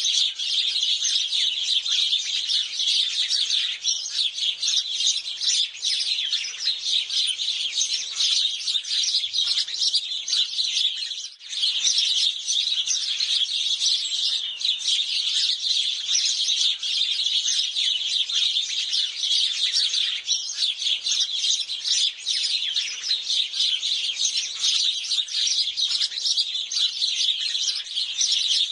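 A flock of house sparrows chirping, with many short chirps overlapping in a dense, continuous chatter and a brief lull about eleven seconds in.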